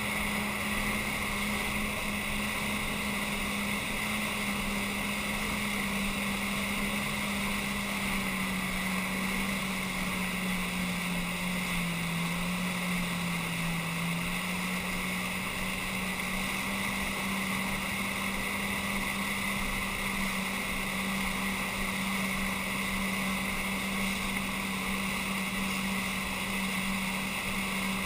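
Jet ski engine running steadily under tow load, with water rushing through its wake. About halfway through, its pitch dips slightly and then comes back up.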